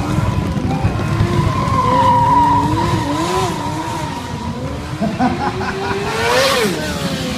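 Stunt motorcycle engine revving up and down as the rider works through a freestyle routine. It climbs to a sharp high rev about six and a half seconds in, then drops back.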